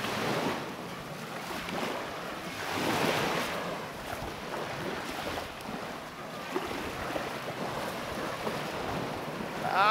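Small waves washing up and breaking on the beach, with wind on the microphone; the surf swells about three seconds in. A person's voice cries out briefly at the very end.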